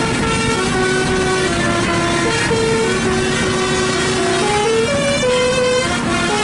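Basuri 'telolet' musical bus horn playing a tune: a run of held notes stepping up and down in pitch, with vehicle rumble beneath.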